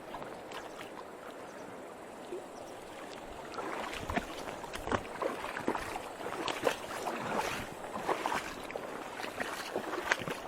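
Mountain river water rushing steadily. About three and a half seconds in it grows louder, with many short, sharp splashing clicks close by.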